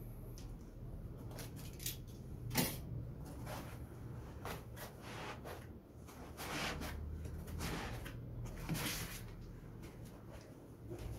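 Packaging being handled: a white foam packing sheet is lifted out of an open cardboard carton, giving a series of scrapes and rustles, with one sharp click about two and a half seconds in.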